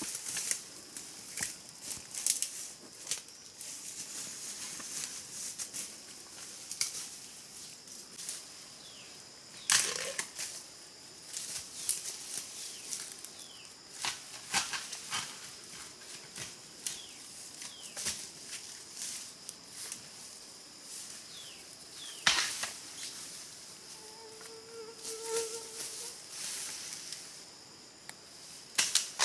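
Irregular sharp snaps and cracks of vegetation being broken and trodden in forest undergrowth, with two louder cracks about ten and twenty-two seconds in. A steady high-pitched drone sits underneath.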